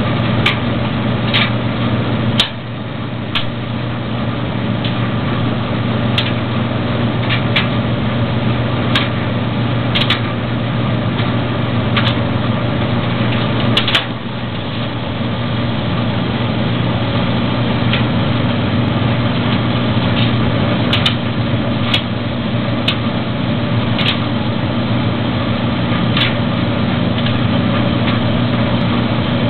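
Maytag DG608 gas dryer running: a steady motor-and-drum hum with irregular sharp clicks from inside the machine. The hum drops suddenly in loudness about two and a half seconds in and again about halfway through.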